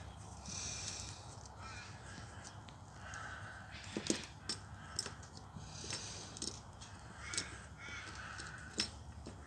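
Crows cawing, a harsh call repeated about five times. Scattered small clicks of metal Meccano parts and screws being handled are heard between the calls.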